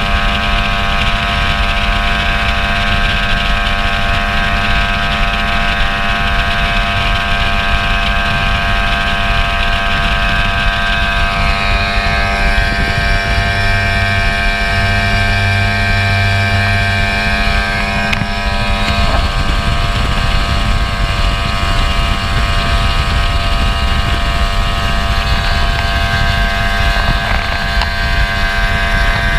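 Outboard motor of a speedboat running at a steady high speed, its pitch holding level, with water and wind rushing past the hull.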